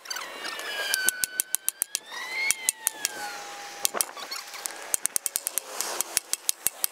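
Sledgehammer striking the top of a steel scaffold pole to drive it into the ground: quick runs of sharp metallic knocks, at times about eight a second, sparser in the first couple of seconds.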